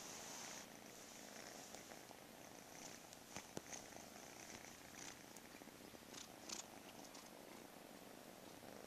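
Kitten purring close to the microphone, a soft, steady purr. A few sharp clicks stand out about three and a half seconds in and again about six and a half seconds in.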